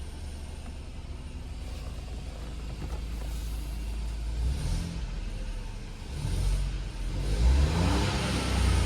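Ford Fiesta 1.0 EcoBoost three-cylinder turbo petrol engine running steadily just after starting, then revved with a rising pitch in the last few seconds. This is the engine whose knocking noise the owner puts down to improper maintenance.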